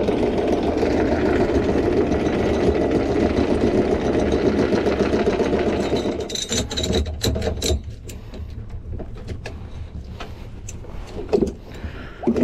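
Sailboat's engine running steadily under way. About halfway through the sound drops away, leaving a lower rumble with scattered clicks and knocks.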